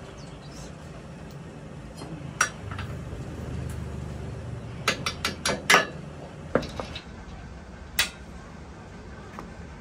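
Sharp metal-on-metal clinks and taps of a steel pin being fitted through a hydraulic cylinder's mounting eye and bracket, with one clink about two seconds in, a quick run of about five taps around five to six seconds in, and two more single clinks after. A steady low background noise runs underneath.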